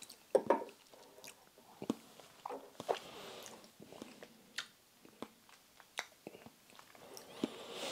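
Faint mouth sounds of a person tasting a sip of whisky: scattered wet clicks and lip smacks, with a few soft breaths. A light knock about half a second in.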